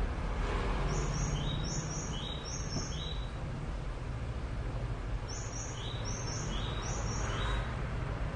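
A bird chirping: a quick phrase of high double notes, each pair followed by a lower note, given once and then repeated after a pause of about two seconds, over a steady low hum.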